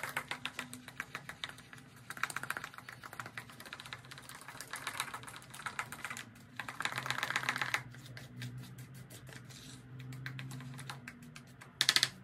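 Tint brush stirring and scraping hair bleach in a plastic mixing bowl: runs of quick, rapid clicking and scraping, in several bursts with short pauses between them.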